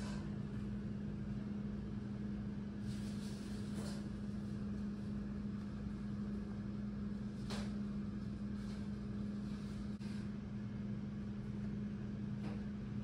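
A steady low machine hum, with a few faint clicks about three, seven and twelve seconds in.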